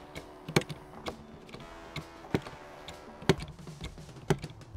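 Hand-operated lever pump on an oil drum clacking with each stroke, about one sharp click a second, as new engine oil is pumped through a hose into the engine. Soft background music underneath.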